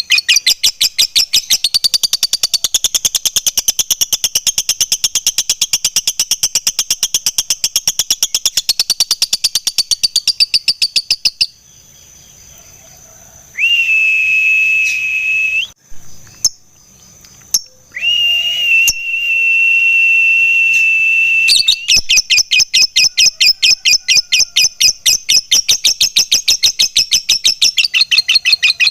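Lovebird singing its long, rapid chattering 'ngekek' song, a fast run of repeated notes. About eleven seconds in the chatter stops, and a steady high whistle-like tone sounds twice. The rapid chatter then resumes for the last seven seconds.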